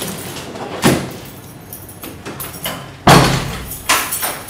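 Knocks and thumps of a large wrapped parcel handled and set down on a wooden floor and the front door being shut and latched, with the loudest thump about three seconds in.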